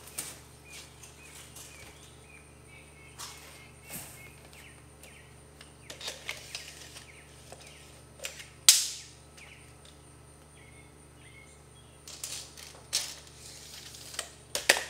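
Rolled welded-wire hardware cloth being handled on a concrete floor: scattered light clinks and rustles of the wire mesh as it is unrolled and measured, with one sharper, louder rattle about nine seconds in.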